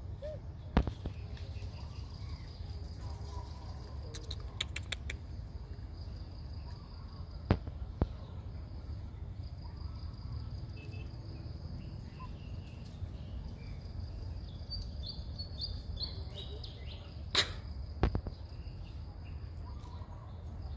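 Outdoor ambience of insects buzzing steadily at a high pitch over a low rumble, broken by a few sharp clicks: one about a second in, then two pairs later on.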